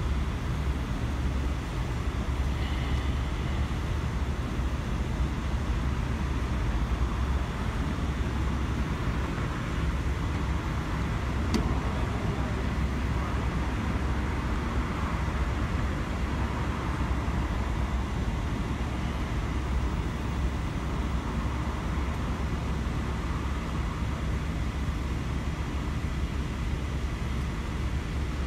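Steady low rumble of vehicle noise: idling cars and road traffic.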